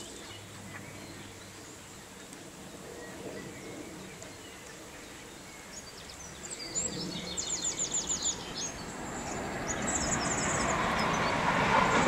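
Low outdoor background noise. About six seconds in, a small songbird sings a quick run of high notes. From about nine seconds a broad rushing noise swells up and is loudest near the end.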